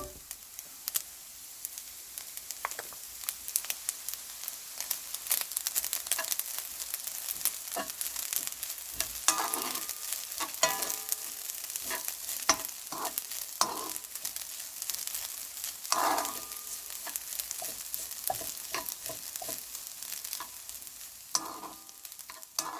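Egg fried rice sizzling in a frying pan as it is stirred and tossed, with a steady hiss broken by frequent short scrapes and taps against the pan.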